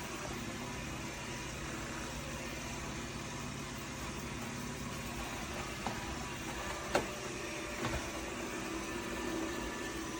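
Dreame L40 Ultra robot vacuum running with a steady motor hum, with a few brief knocks about two-thirds of the way through.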